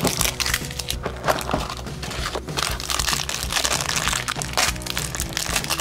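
Sharp cracks and crinkling as a plastic LOL Surprise Pets ball and a foil blind-bag packet are pulled open by hand, over background music.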